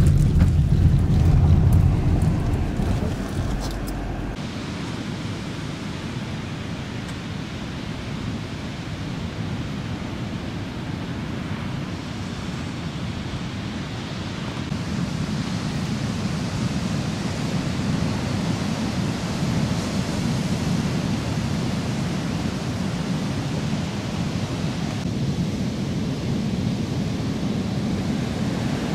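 Sea surf breaking on the shore, with wind, as a steady rushing noise. For the first few seconds a vehicle's low rumble carries over from the drive, until the sound cuts to the surf.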